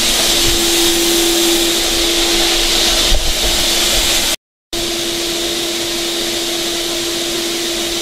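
Wet/dry shop vacuum running steadily, its hose pushed into a car's tailpipe to blow air in and pressurize the exhaust system for a soapy-water leak test. It is a steady rushing noise with a constant hum, and it cuts out for a moment about halfway through.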